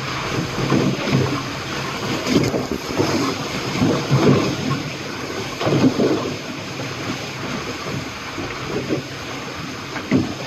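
Bow wave rushing and slapping against a sailing catamaran's starboard hull, heard from inside the forward head compartment at about 13 knots, with irregular louder surges.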